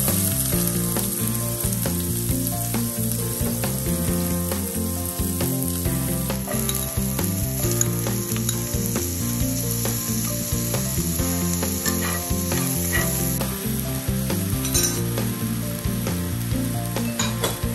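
Food sizzling and frying in a nonstick pan: diced onion and sliced hotdog frying in oil, then spaghetti in a cream sauce bubbling in the pan.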